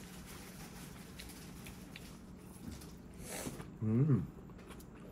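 Quiet noodle eating: faint chopstick and bowl clicks, a short slurp of noodles about three seconds in, then a brief falling 'mm' from a voice.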